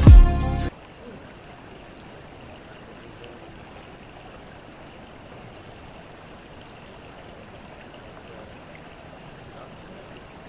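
Background music cuts off suddenly under a second in, giving way to the steady rush of flowing creek water.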